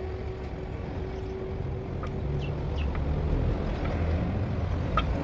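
A low, uneven rumble, with a few light clicks and knocks of hand tools being worked under a tractor.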